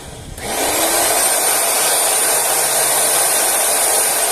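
Electric motor of a Torrey appliance switched on with its blade assembly removed: a click, then it spins up within about half a second to a loud, steady whirr with a high whine. It runs smoothly, so the strange noise is not coming from the motor.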